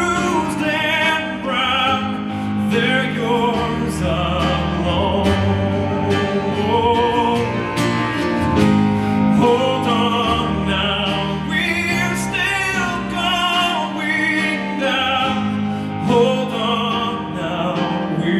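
Live music: a male voice sings long, wavering notes with vibrato over grand piano and band accompaniment.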